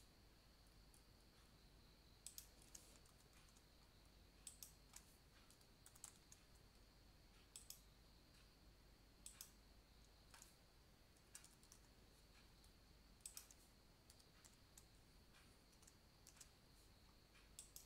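Faint typing on a computer keyboard, in short bursts of a few keystrokes every second or two, over a faint steady high-pitched hum.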